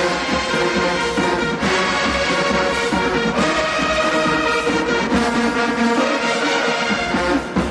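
HBCU marching band playing, led by its brass section: loud held horn chords that change every second or two.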